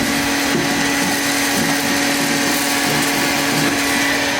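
A small high-speed electric motor running steadily: a constant hum over a broad hiss, unchanging throughout.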